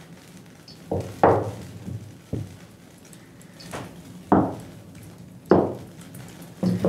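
A series of about seven sharp knocks, irregularly spaced, each ringing briefly, like hard objects being handled and set down on a table, over a faint steady hum.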